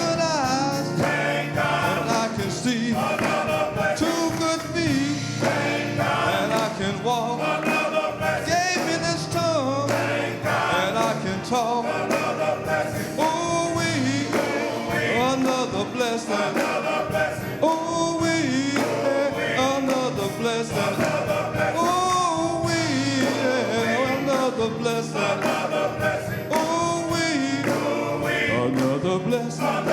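Gospel music: voices singing over a band with a steady beat and bass, an upbeat church song played live.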